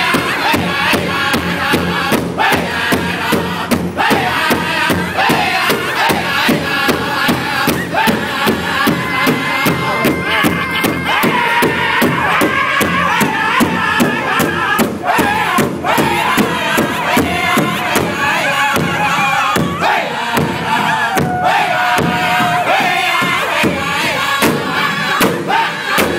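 Powwow drum group singing in high-pitched unison with a steady, even beat on a shared big drum, here a song for the Woman's Traditional dance.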